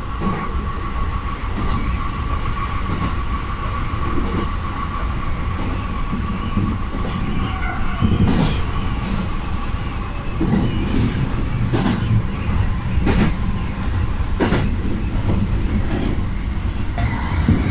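Local train running between stations, heard from inside the car: a steady rumble with a faint steady whine, and wheels knocking over rail joints about five times in the second half.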